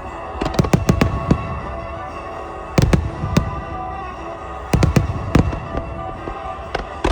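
Aerial fireworks shells bursting in quick clusters of sharp bangs, with a low rumble after each cluster: a group about half a second in, another near three seconds, another near five seconds and one more at the end. Music plays steadily underneath.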